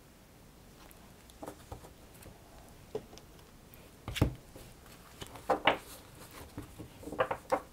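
Soft taps and rustles of oracle cards being handled on a cloth-covered table as a card is picked up and put away, with one sharper knock about four seconds in.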